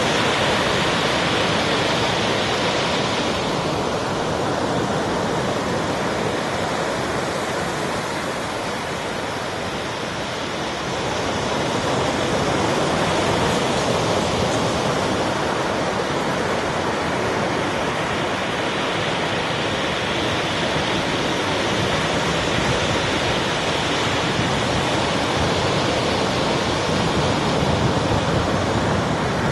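Sea surf washing ashore, a steady rush of waves with a slight dip about ten seconds in.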